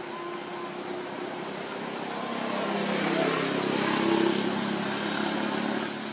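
A motor vehicle's engine humming past, growing louder to a peak about four seconds in and then easing off.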